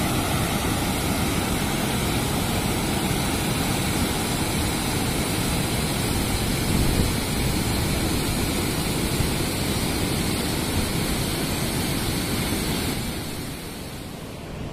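Water rushing and churning through the open gates of a river barrage: a steady, loud rush of noise that eases and grows duller near the end.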